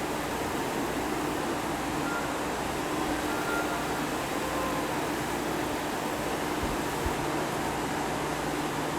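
Steady mechanical hum and hiss of a standing electric train's air-conditioning and auxiliary equipment, with one soft thump about seven seconds in.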